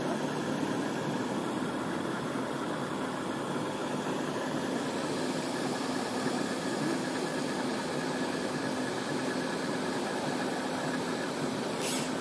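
Steady mechanical drone: a constant low hum under an even hiss, with a brief scratch near the end.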